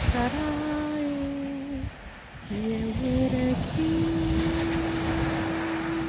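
A person humming or toning a series of held notes. There are a few short steady pitches in the first half, then one long unwavering note of about three seconds starting near the middle. Underneath runs the steady wash of surf breaking on a shingle beach.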